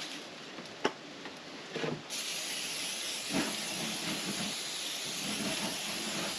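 Raw chicken wings sizzling as they are laid on the hot grates of a gas grill: a steady hiss that sets in about two seconds in, with fat flaring up in the flames.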